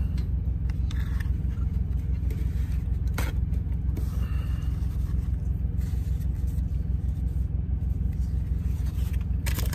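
Steady low drone in a semi truck's cab, which the driver puts down to his power inverter running to power the electric frying pan. A brief clatter about three seconds in as the knife is set down on a paper plate.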